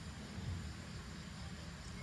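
Quiet outdoor evening ambience: a steady low rumble under a faint hiss, with a soft low thump about half a second in.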